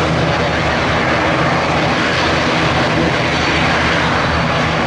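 Beechcraft King Air B200C's twin Pratt & Whitney PT6A turboprops running steadily and loud: a low propeller hum under a broad rushing noise.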